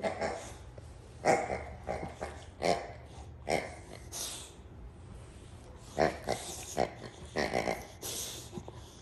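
Boxer dog chewing and squeezing a pink rubber pig toy: a dozen or so short bursts of noise, coming and going irregularly.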